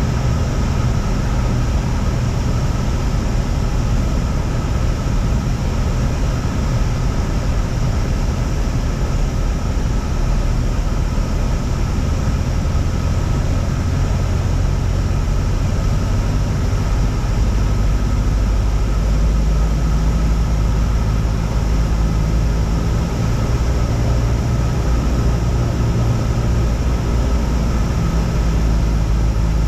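Steady drone of a Cessna 172's piston engine and propeller in flight, with a slight change in its low tones about two-thirds of the way through.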